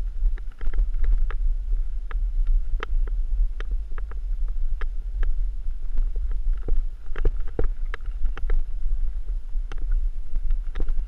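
Wind buffeting the GoPro microphone as a heavy low rumble. Over it come irregular sharp clicks and knocks, several a second, as a mountain unicycle rides over a rocky dirt trail.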